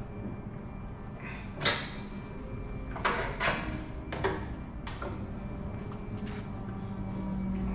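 Plastic retaining clips on a pickup's rear bumper cover being pried loose: a few sharp snaps and clicks, the loudest about a second and a half in and three more over the next few seconds, over a steady low hum.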